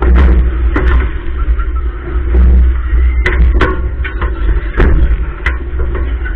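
Super Schunkler fairground ride in motion, picked up by a camera mounted on the ride: a heavy, continuous low rumble with about half a dozen sharp knocks and bangs at irregular intervals.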